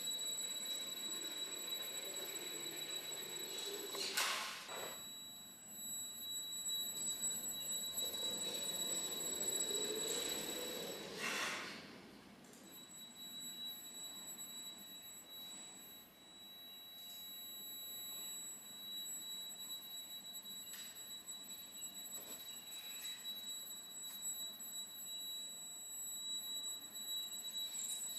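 Small electric RC car's motor drive giving a steady high-pitched whine on one pitch, which drops out briefly about twelve seconds in. Short rushes of noise come about four and eleven seconds in.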